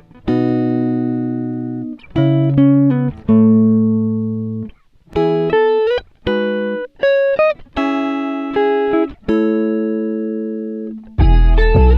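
Background music: a series of plucked guitar chords, each struck sharply and ringing out as it fades. A fuller, louder passage with deep bass comes in near the end.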